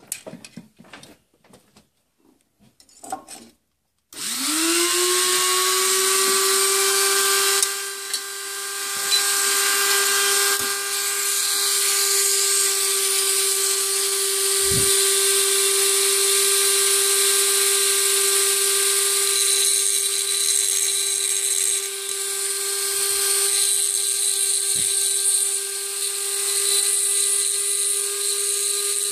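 A Dremel rotary tool on a flexible-shaft attachment spins up about four seconds in, its whine rising quickly to a steady high pitch. It then runs on with a continuous hiss while it grinds the square cylinder-window corners of a metal V2 airsoft gearbox shell round. A few light handling clicks come before it starts.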